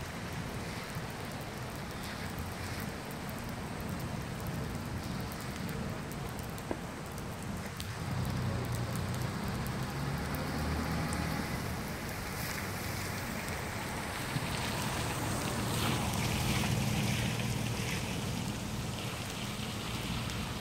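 Steady rain falling, with a low rumble of distant thunder that builds in the second half.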